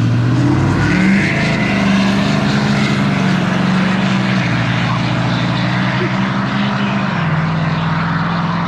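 Pickup truck engine running hard in a drag race launch. The engine note jumps up about a second in, then steps down partway through and again near the end as the transmission shifts gears.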